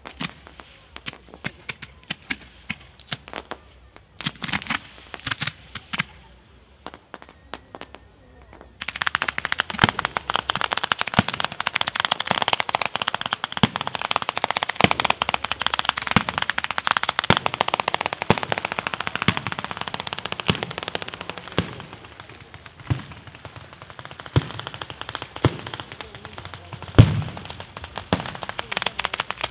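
Fireworks going off: scattered separate bangs and crackles, then, about nine seconds in, a sudden dense rapid rattle of bangs like a machine gun. The rattle thins out in the last several seconds, with separate louder reports and one loudest bang near the end.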